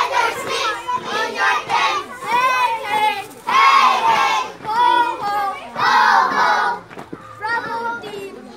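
A group of children chanting and shouting together in a team cheer, many voices at once, with louder shouted lines around the middle.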